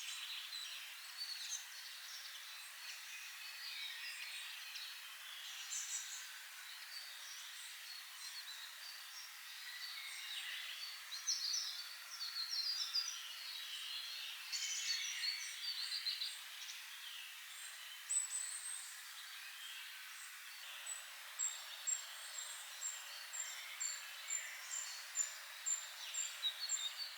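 Several wild birds singing and calling at once, a dense mix of chirps and trills over a steady background hiss. In the last few seconds one bird repeats a thin, very high note about twice a second.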